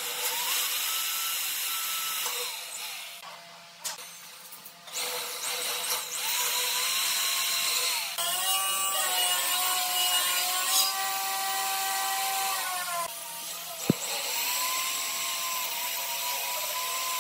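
Handheld power tool working wood in several separate runs. Each run has a motor whine that climbs as it starts and sinks as it stops, over a loud rasp. A single sharp knock comes about 14 seconds in.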